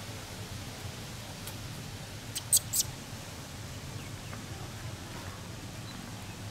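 Newborn baby macaque giving about three short, high-pitched squeaks in quick succession, a little over two seconds in, over a steady low hum.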